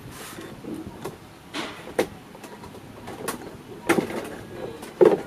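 Hands working plastic body panels and fasteners under a scooter seat: scattered clicks, rustles and knocks, the loudest knock near the end.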